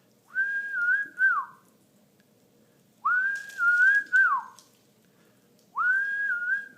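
A person whistling the same short phrase three times, each one rising, holding with a small dip, then falling away.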